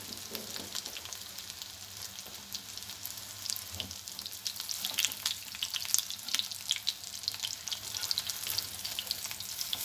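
Shami kebab patties shallow-frying in oil in a nonstick pan: a steady sizzle full of small crackling pops, growing busier from about three seconds in as a metal spatula works among the patties.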